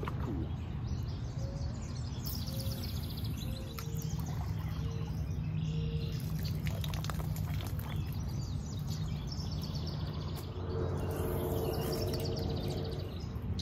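Birds chirping and singing over a steady low background rumble.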